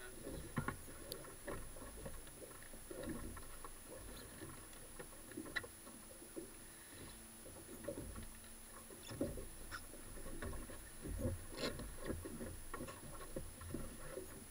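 Irregular soft clicks, taps and low thumps aboard a small boat drifting on choppy water, with no engine running.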